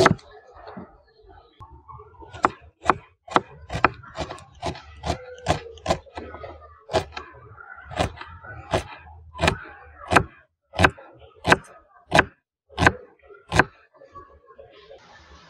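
Kitchen knife chopping a red onion on a wooden chopping board: about twenty sharp knocks of the blade striking the board, roughly two a second, slowing a little toward the end.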